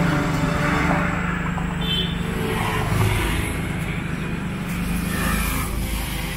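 Proton Satria Neo's 1.6-litre Campro CPS four-cylinder engine running steadily with the car standing still, on a Wing standalone ECU.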